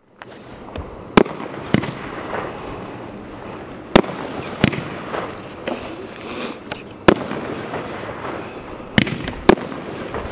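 A 25-shot consumer fireworks battery (cake), the Fyreks President, firing. About seven sharp bangs at uneven gaps sound over continuous crackling.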